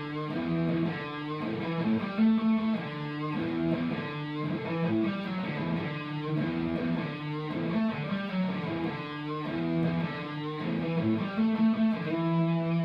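Ibanez RG electric guitar played through a Marshall MG101CFX amplifier: a run of changing picked notes and chords, settling into one held, ringing chord about twelve seconds in.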